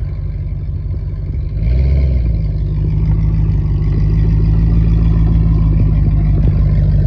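V8 engine revving hard. It jumps louder about one and a half seconds in, then holds at high revs.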